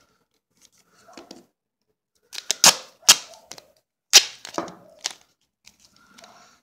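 Duct tape being ripped off the roll and torn: four sharp rips between about two and five seconds in, two of them drawn out, with soft crinkling of the tape being handled before and after.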